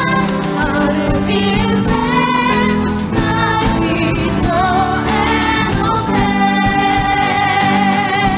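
Young singers performing a song into microphones over backing music; near the end a high voice holds one long note with vibrato.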